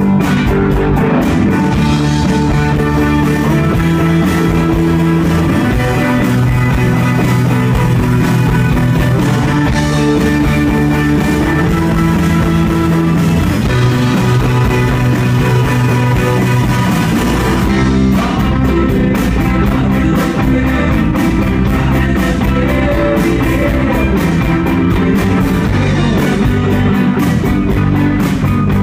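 Live rock band playing loud, electric guitars to the fore over a steady beat.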